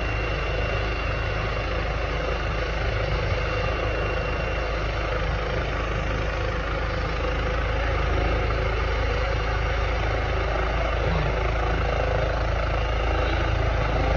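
Medical helicopter running on the ground with its rotor turning, a steady engine and rotor sound that grows a little louder about eight seconds in.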